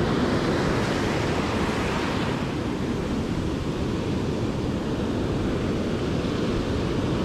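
Ocean surf washing up the beach, a steady rush, with wind rumbling on the microphone.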